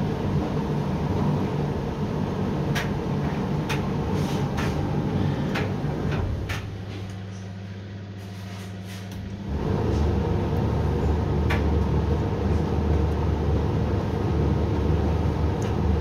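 Hoover washer-dryer on a heated drying cycle for bed linen, its drum tumbling the load with a steady motor-and-fan noise and occasional light clicks. About six and a half seconds in, the drum stops and only a quieter steady hum is left. About three seconds later the drum starts tumbling again.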